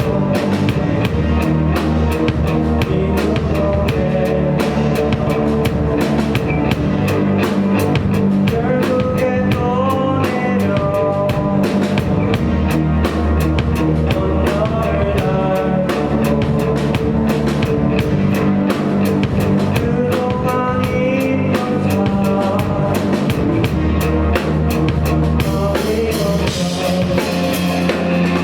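Live rock band playing through the venue's speakers: a steady drum-kit beat with guitar, and a melody line on top.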